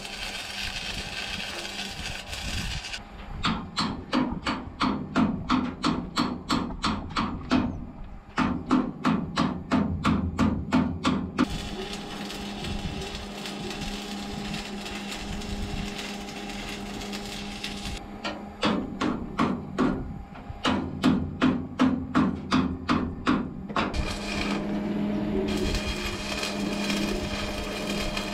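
Stick (arc) welder's arc running on steel in three stretches: one at the start, one in the middle and one near the end. Between them come two runs of rapid metal-on-metal strikes, about three a second.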